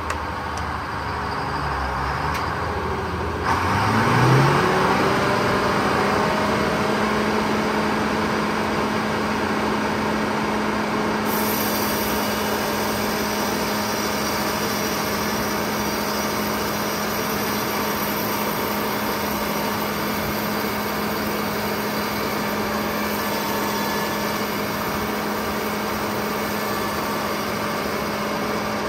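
Lane No. 1 sawmill's engine revving up from a low idle about four seconds in, its pitch rising and then holding steady at working speed for the rest of the time.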